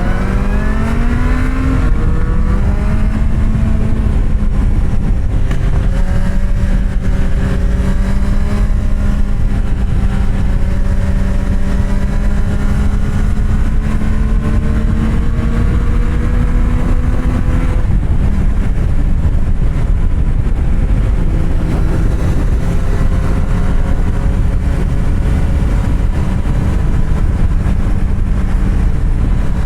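Kawasaki Z750R's inline-four engine, through an aftermarket SC-Project exhaust, pulling under way: it revs up over the first couple of seconds, then holds a fairly steady pitch, drops about two-thirds of the way through, and steadies again. Wind rushes over the microphone throughout.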